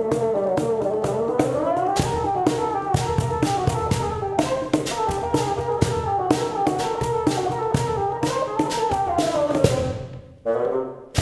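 Bassoon playing a fast melodic line with slides up and down in pitch, over quick, steady hand strokes on a cajón, whose deep bass thumps join about two seconds in. Near the end both break off briefly, then a sharp hit brings them back.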